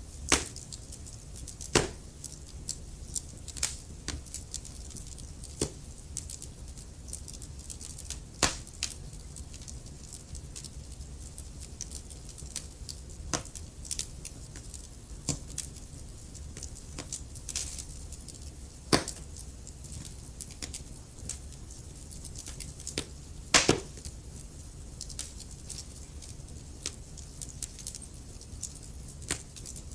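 Wood fire burning in a fireplace: logs crackling with irregular sharp pops, a few louder snaps scattered through, over a low steady rumble of the flames.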